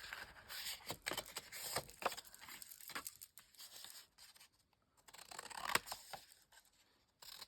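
Paper and card being handled: faint rustling and light scraping with small taps, dropping nearly to silence twice.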